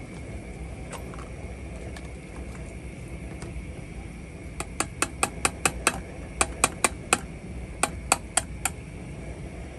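A rapid series of sharp clicks, about seventeen in three quick runs of roughly five or six a second, starting about halfway through and ending near the end.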